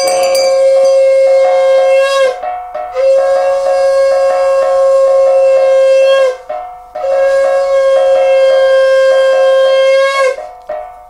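Conch shell (shankha) blown in three long, steady blasts, each of about two to three seconds with a short breath between them. Under the blasts a metal gong plate is beaten in a fast, even rhythm.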